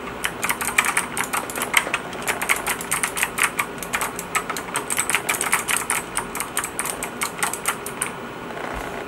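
Typing on an ABKO Hacker K7900 mechanical keyboard with Kailh optical clicky switches: a quick, uneven run of sharp key clicks that stops about a second before the end.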